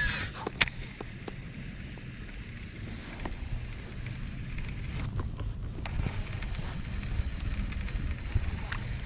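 Wind rumbling on the microphone, with a few light clicks and knocks scattered through.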